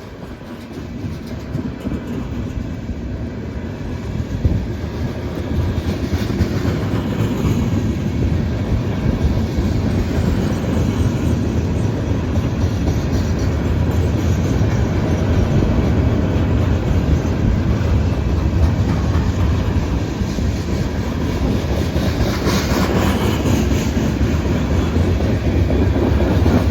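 Norfolk Southern freight train's cars rolling through a grade crossing, wheels clattering over the rail joints, growing gradually louder. Heard from inside a car.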